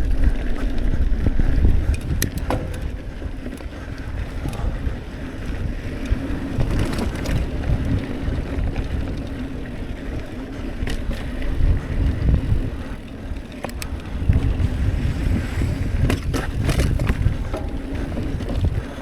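Hardtail mountain bike riding down a rocky dirt trail: tyres crunching over dirt and stones, with scattered sharp clicks and rattles from the bike and wind rumbling on the microphone.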